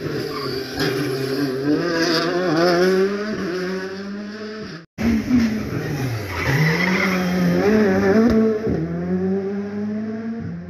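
Rally car engines working through a tight hairpin, the revs rising and falling with throttle lifts and gear changes. The sound breaks off for a moment just before the halfway point, then a second car's engine comes in; its pitch dips low and climbs again about a second and a half later.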